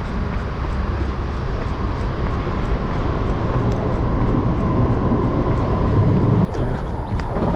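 An MRT train running on the elevated track overhead: a loud, steady low rumble with a faint hum over it, which drops off sharply about six and a half seconds in.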